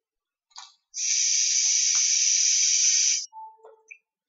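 A loud, steady hiss lasting about two seconds, starting about a second in and cutting off sharply, with a faint click just before it.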